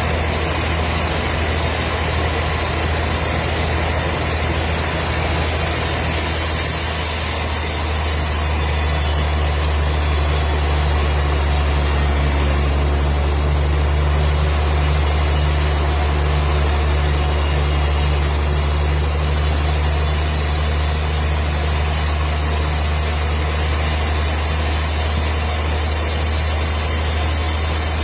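Wood processing machine running steadily: a deep, even hum under a layer of mechanical noise, slightly louder from about eight seconds in.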